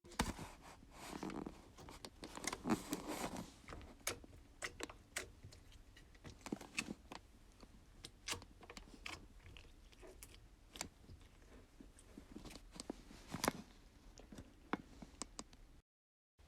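Slime being squished and poked by hand, giving off faint, irregular sticky pops and clicks over a soft squelching rustle.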